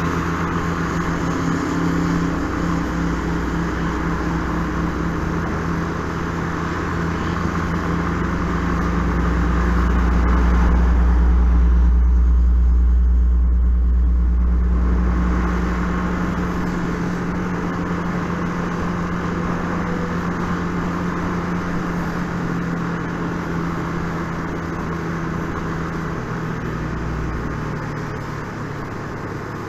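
Yamaha Fazer 250 motorcycle riding at a steady cruise, heard from the rider's camera: a steady engine hum under heavy wind and road noise. About halfway through, a deep rumble swells and fades away.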